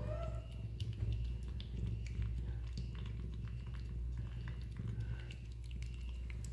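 A cat eating wet food from a bowl: soft wet chewing and licking, many small clicks, over a steady low hum.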